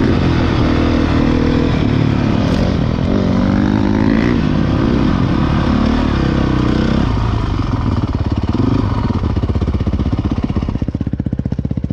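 Dirt bike engines revving, their pitch rising and falling. About seven seconds in, this gives way to one engine running at low revs with a rapid, even pulsing, which drops a little in level near the end.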